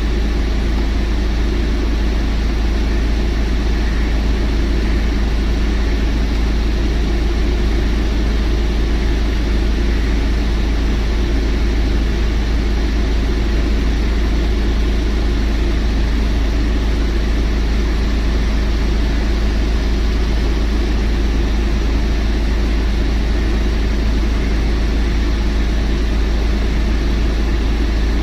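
Mahindra Scorpio's diesel engine idling steadily, with a constant low hum, during a regeneration run started from the scan tool after the DEF dosing module was cleaned.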